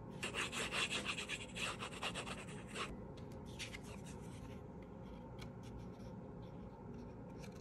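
Cardstock rustling and rubbing under the fingers as glued paper layers are pressed together. The scratchy handling is busiest in the first three seconds, with a shorter burst a little later and then only a few faint ticks.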